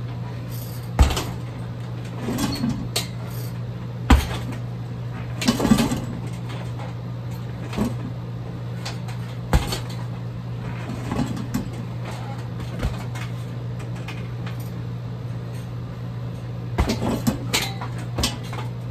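Kicks landing on a heavy bag: about a dozen separate thuds at uneven spacing, some coming in quick clusters, over a steady low hum.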